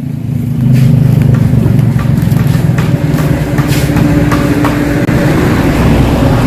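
An engine running steadily at an even pitch, loud, coming up sharply under a second in.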